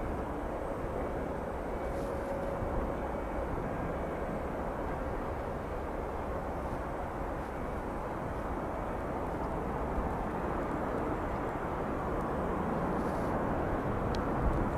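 Steady rushing jet noise from an arriving Boeing 737-700's CFM56 engines, heard at a distance and growing slightly louder near the end.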